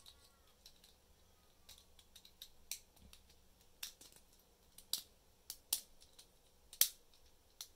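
Lego Technic plastic parts clicking as they are pressed together and handled: about a dozen short, sharp clicks at irregular intervals, the loudest a little before the end.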